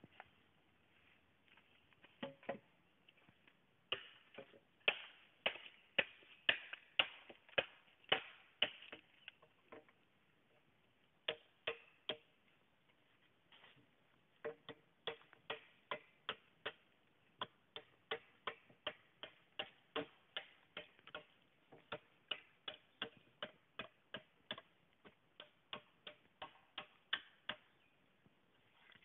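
Machete chopping bamboo in sharp, steady strokes, about two a second, with two short pauses in the first half.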